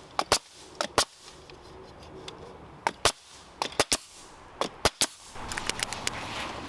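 A series of sharp, irregular wooden knocks and clacks, often in pairs, as boards and tool parts are placed and shifted while setting up a cutting jig.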